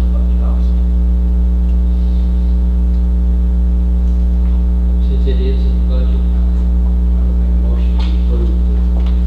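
Steady low electrical mains hum with a stack of overtones, unchanging throughout. Faint, indistinct voices come through briefly about five and eight seconds in.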